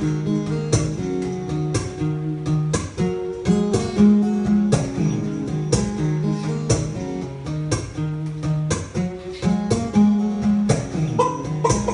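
Acoustic guitar strummed in a steady rhythm, moving back and forth between chords.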